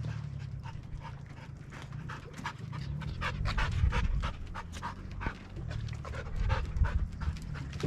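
A dog panting hard close by, quick breaths about three a second, over a steady low rumble.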